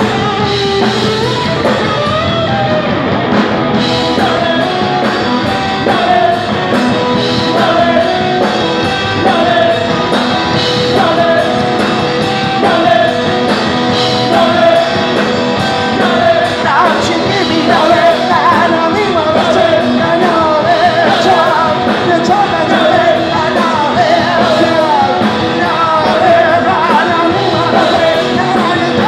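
Punk rock band playing live and loud: a singer over electric guitar, bass guitar and drums, heard with the room's echo.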